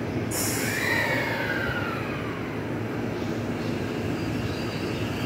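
JR East E353 series electric train standing at the platform with a steady running hum. About a third of a second in there is a sudden loud hiss, followed by a whine that falls in pitch over the next two seconds.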